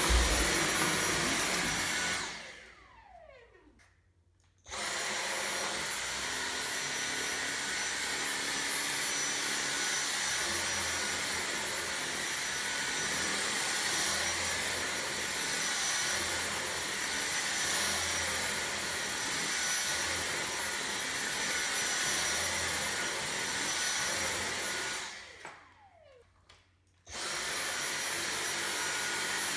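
Dyson V6 cordless stick vacuum running with a steady whine. It is switched off twice, once a couple of seconds in and again near the end: each time the motor winds down with a falling whine, goes nearly silent for about two seconds, then starts again at full speed.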